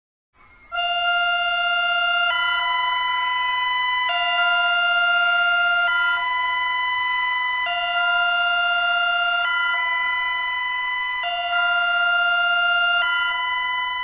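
Electronic emergency alert warning tone, alternating between a lower and a higher pitch about every 1.8 seconds in a hi-lo pattern, starting about a second in.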